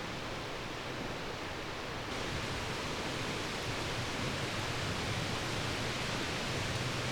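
Steady, even hiss of outdoor background noise, with no distinct events; the higher part of the hiss gets a little brighter and louder about two seconds in.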